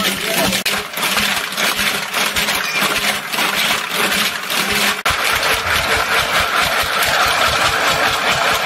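Ice chunks and metal kulfi moulds clattering against the inside of a metal pot as it is shaken and turned by hand, a rapid continuous rattling. The pot is being churned in ice and salt to freeze the kulfi.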